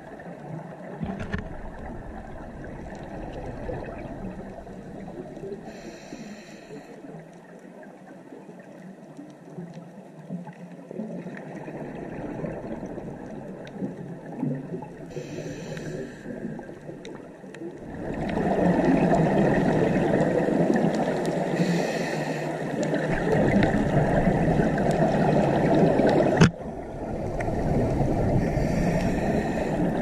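Underwater ambience picked up by an action camera in its waterproof housing: a low, muffled wash of water, with short hissing bursts of bubbles every several seconds, typical of a scuba diver's exhalations. It grows louder about two-thirds of the way in, and there is a single sharp click near the end.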